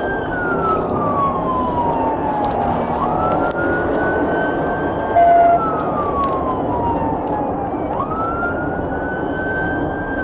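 Police car siren on a wail, each cycle rising quickly and then falling slowly, repeating about every four seconds over steady engine and road noise during a pursuit. A short, loud beep sounds once about five seconds in.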